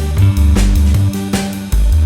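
Background music: an instrumental rock track with drums, bass and guitar, on a steady beat.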